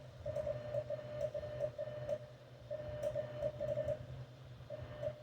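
Morse code (CW) sidetone from the transceiver: a single steady mid-pitched beep keyed on and off in short and long elements in uneven groups, as the operator sends by hand through the amplifier. A steady low hum runs underneath.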